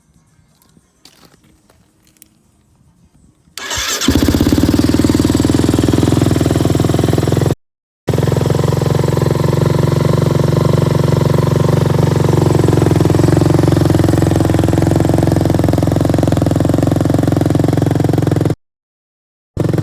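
Kawasaki KFX450R ATV's single-cylinder four-stroke engine, freshly rebuilt with a new piston and cylinder, catching about three and a half seconds in after a few faint clicks and then running steadily and loud. The sound cuts out completely twice for under a second.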